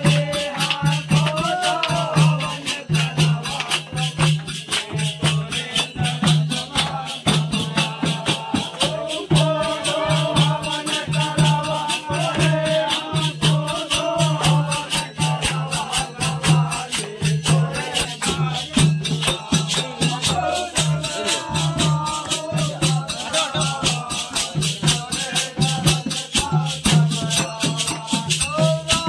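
Village Holi phag: a group of men singing a folk song to a dholak beating a steady rhythm, with dense, fast jingling percussion over it.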